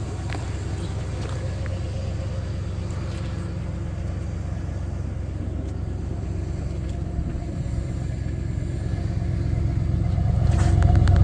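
Cadillac 4.9-litre V8 idling steadily just after a cold start, running smoothly on its new idle speed control motor, with a slightly raspy note. It grows louder over the last few seconds as the tailpipe comes close.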